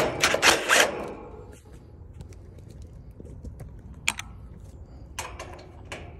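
Cordless impact driver backing out screws from the sheet-metal top panel of an HVAC condenser: a loud burst of driving in the first second, then shorter bursts about four and five seconds in.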